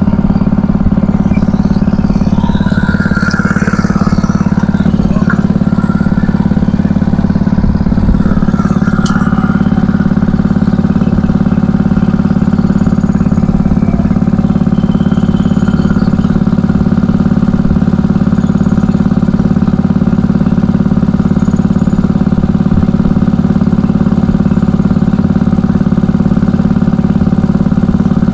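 A small engine running steadily at one speed, a deep even hum that does not change.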